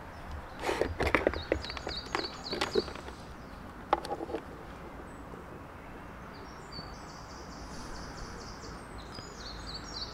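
A DSLR camera being handled in its plastic camera-trap case: a quick cluster of clicks and knocks in the first few seconds and one more click about four seconds in. Birds sing in the background with rows of repeated high chirping notes, most clearly near the start and again toward the end.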